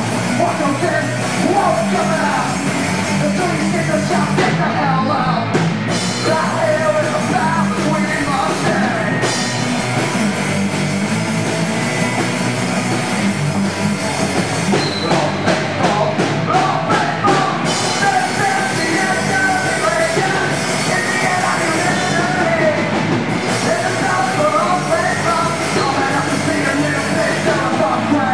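Punk rock band playing live: electric guitar, bass and drum kit at a steady loud level, with sung vocals over them.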